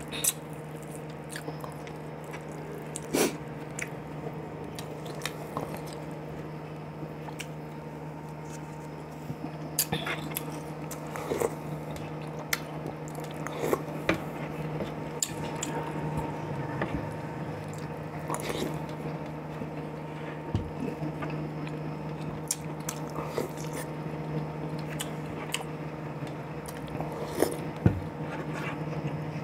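Close-up eating sounds of a man chewing and biting on boiled chicken and its soup, with scattered sharp clicks and taps. A steady low hum runs underneath.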